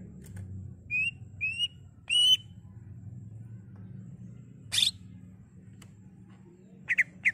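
Green leafbird (cucak ijo) calling: three short rising whistles about a second in, the third the loudest, then a single sharp call near the middle and a quick double note near the end, over a low steady hum.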